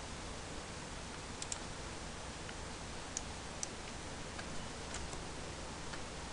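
Steady microphone hiss with a handful of short, faint clicks, spaced irregularly, from someone working a computer.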